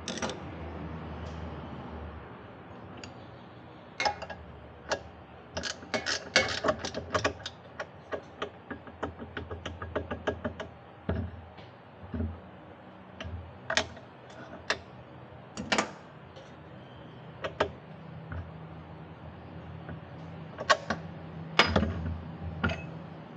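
Metal hand tools clicking and knocking at irregular intervals, with a fast run of clicks about six to ten seconds in and a few louder knocks near the end.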